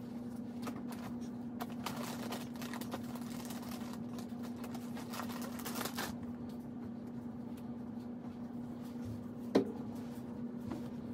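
Soft rustling and light clicks, thickest in the first six seconds, over a steady low hum; one sharp tap about a second and a half before the end.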